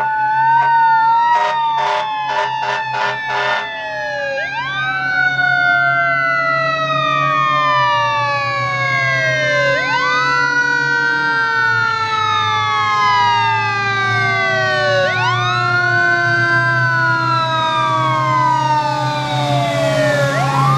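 Fire truck siren: a fast warble, then six short rapid blasts, then a wail that climbs quickly and slowly winds down, repeated about every five seconds, with a steady low hum underneath.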